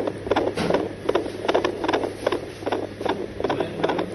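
Fetal heartbeat heard through a handheld Doppler's speaker: rapid, rhythmic whooshing pulses, roughly two to three a second, over a steady electrical hum.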